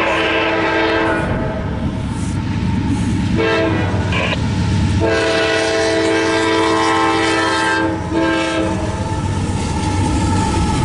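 Freight locomotive's chord air horn sounding several blasts for a grade crossing, a long one in the middle and a short one about eight seconds in, over the low rumble of the approaching diesel train.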